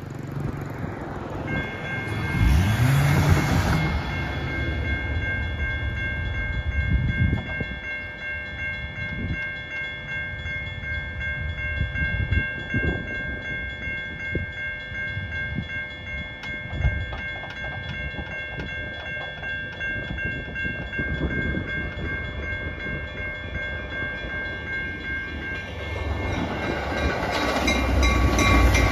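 Railroad crossing warning bell starts ringing about a second and a half in and keeps ringing steadily while a car passes over the crossing. Near the end the rumble of an approaching Metra commuter train grows louder.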